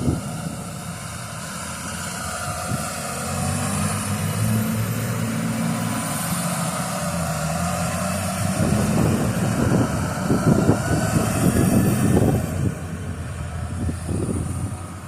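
A motor vehicle's engine running with a steady low hum, then wind buffeting the microphone in gusts from about eight seconds in.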